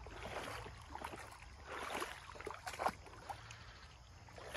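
Shallow creek water running and trickling over a gravel bed, with a few small splashes.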